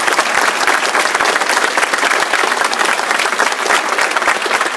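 Congregation applauding: dense, steady clapping from many hands that starts just before this moment and holds throughout.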